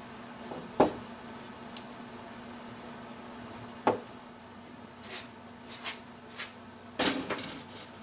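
Hand-handling noises of small parts on a fireplace flame motor: sharp clicks as a plastic coupling is pushed onto the motor shaft and pinned, the two loudest about one and four seconds in, then a quick run of light knocks and a short clatter against the metal housing near the end. A faint steady hum runs underneath.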